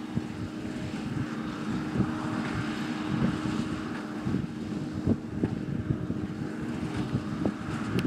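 New Holland T6.175 tractor engine running steadily under load, pulling a New Holland BB940 large square baler that is picking up and baling hay, with irregular low thumps and some wind on the microphone.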